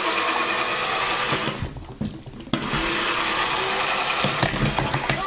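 Small geared motor of a beer-pouring robot toy whirring as its arm tips a can to pour beer into a glass, with a short break about two seconds in.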